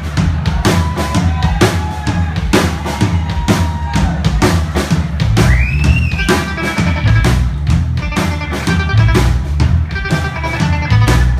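A live rock band playing: a drum kit keeps a steady kick-and-snare beat, and electric guitar comes in with a rising bend about six seconds in, then held chords over the drums.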